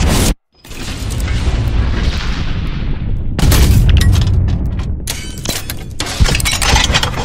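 Sound-design effects in an electronic dubstep mix: deep, loud rumbling noise that cuts out suddenly for a moment near the start and swells back, then gives way to dense crackling, clattering impacts in the second half.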